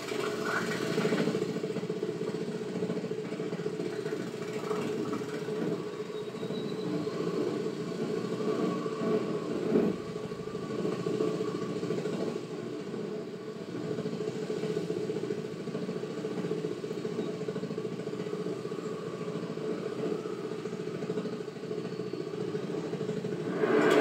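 Film sound effects of a large flying beetle's wings: a low, steady droning buzz played through a television's speakers, with a brief louder hit about ten seconds in.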